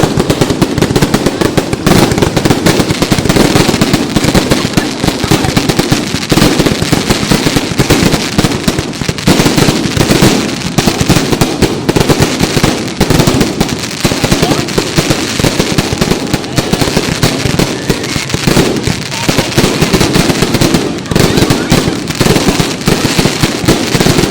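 Fireworks display going off in a loud, dense barrage of bangs and crackle with no break.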